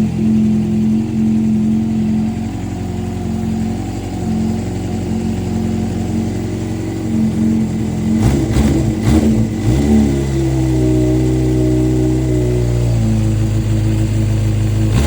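Honda CBR400F motorcycle's inline-four engine running at idle after its repair, with a short burst of throttle blips about eight seconds in, then settling back to a steady idle.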